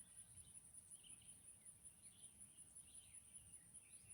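Faint rural ambience: a steady, high-pitched insect drone that pulses rapidly, with faint scattered bird chirps.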